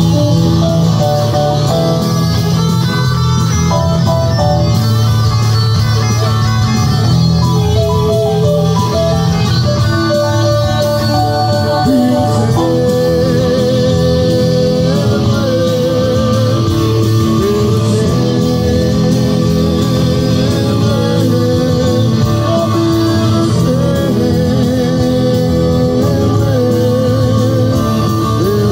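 Live band playing amplified music with electric guitars. About halfway through, a lead line of long, held notes with vibrato comes in.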